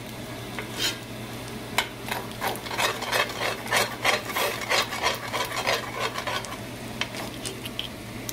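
Metal spatula scraping and stirring fried rice in a cast-iron skillet, quick repeated scrapes over a frying sizzle, as beaten egg is scrambled into the rice.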